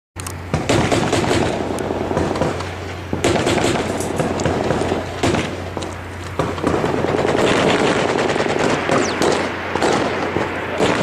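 Close-range automatic gunfire from rifles and machine guns: many rapid shots overlapping in a dense, continuous volley, with a steady low hum underneath.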